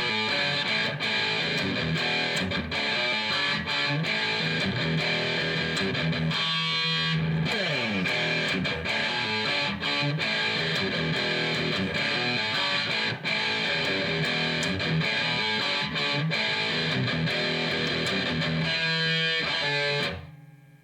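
Outro music led by a distorted electric guitar, steady until it drops away and fades out near the end.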